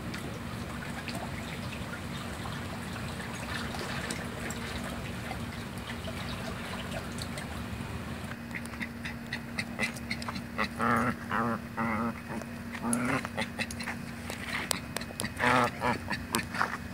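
A run of short, nasal, quack-like animal calls in the second half, some warbling and some in quick pairs, with scattered clicks over a low steady hum.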